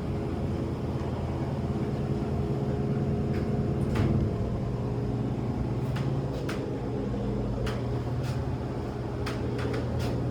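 Elevator car running: a steady low hum with scattered light clicks and rattles.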